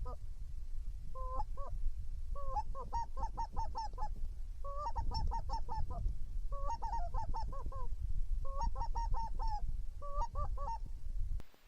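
Geese honking in repeated quick runs, each run a longer note followed by several short ones, about every second and a half. Heavy wind buffets the microphone underneath, and the wind noise cuts off abruptly near the end.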